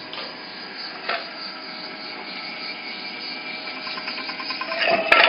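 Large-nut tapping machine running, its spindle driving a tap into a nut: a steady motor whine with several held tones that grows louder over the last couple of seconds, with a sharp click near the end.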